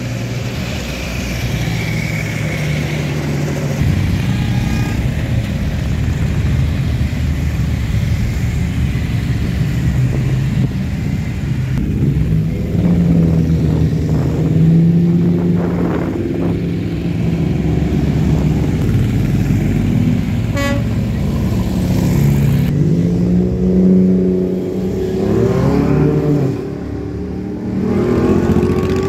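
A line of motorcycles, among them a three-wheeled roadster, riding past one after another, their engines revving up and dropping as each passes through the bend. About two-thirds of the way through comes a short horn toot.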